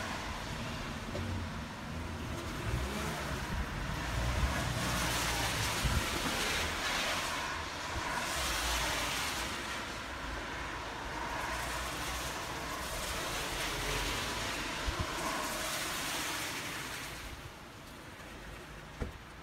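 Rain and traffic on a wet road: a steady hiss that swells and fades, with wind rumbling on the microphone. It quietens about two seconds before the end.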